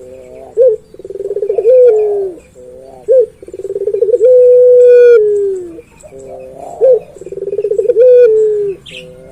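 Male puter pelung dove cooing repeatedly, about three calls. Each call is a few short coos, then a fast rolling run that swells in loudness, a long held note and a falling tail.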